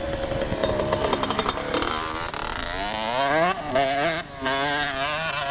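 Two-stroke engine of a green Kawasaki motocross bike revving hard as it rides past close by and accelerates up a slope. Its pitch climbs from about two seconds in, then holds high and wavers with the throttle.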